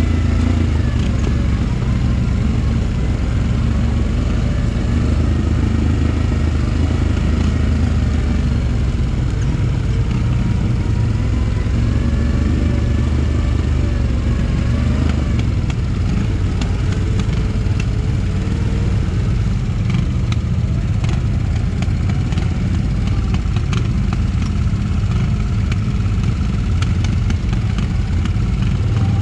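ATV engine running at low, steady trail speed, its pitch rising and falling slightly with the throttle. Scattered light clicks and rattles in the second half.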